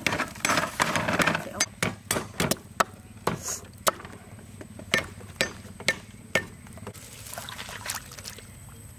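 A cleaver chopping lemongrass and ginger on a round wooden chopping block: about a dozen sharp chops at an uneven pace. Near the end the cut pieces drop with a light splash into water in a wok.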